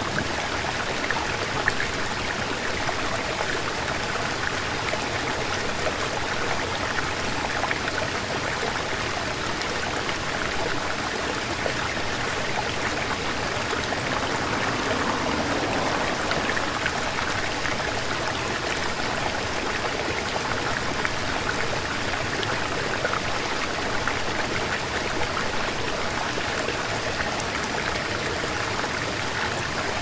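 Stream water rushing with a steady, even sound that does not change.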